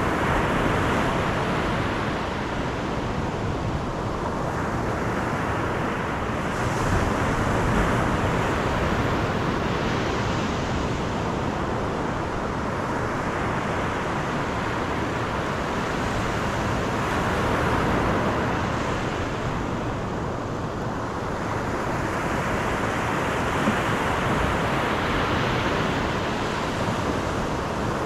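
Car driving along a road: steady tyre and wind noise that swells and fades slowly every several seconds.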